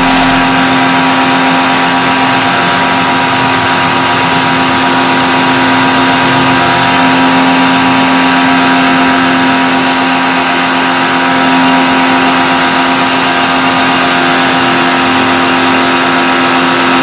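Electric pressure washer running steadily, its motor giving a constant hum.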